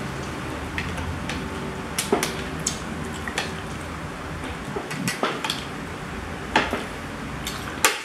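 Fork and knife clinking and scraping on ceramic plates while food is cut, with about eight sharp clinks spread through.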